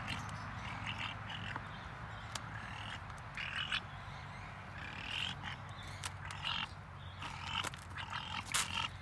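Young grey crowned cranes feeding from a plastic bucket: short rough sounds every second or so, with a few sharp clicks of bills knocking against the bucket.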